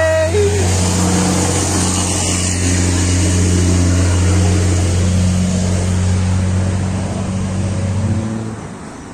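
A motor running steadily, a low hum over a hiss, which fades out near the end.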